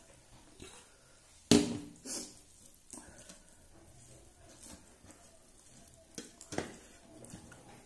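Metal dishes knocking and clinking on a table: one loud clank with a short ring about one and a half seconds in, then a few lighter knocks, including one about six and a half seconds in. Between them, faint sounds of rice being mixed by hand on a metal plate.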